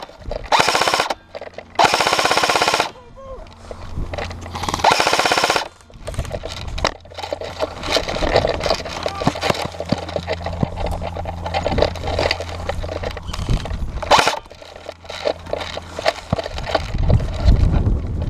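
Airsoft guns firing fully automatic: three bursts of about a second each in the first few seconds, then a steady run of rapid shots over a low hum, with one more short burst later on.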